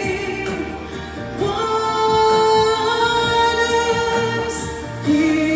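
A woman singing a gospel worship song into a microphone, holding long notes, with music accompanying her.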